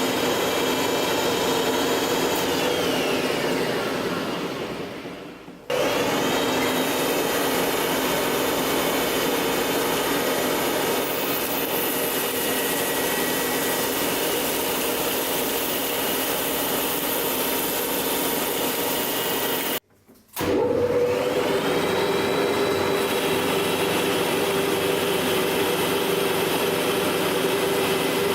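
A machine tool's motor and spindle running with a steady whine. About three seconds in it winds down, its pitch falling. Near six seconds the running sound returns abruptly; it cuts out briefly near twenty seconds, then spins back up with a rising pitch that levels off.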